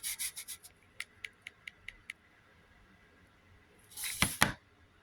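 Handling noise: a short rustle, then a quick run of about six small clicks, and near the end another rustle with two sharp knocks.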